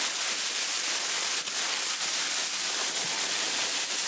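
Plastic bag holding dry cat kibble and wet canned food being kneaded and shaken by hand to mix it, a continuous rustling, crinkling hiss.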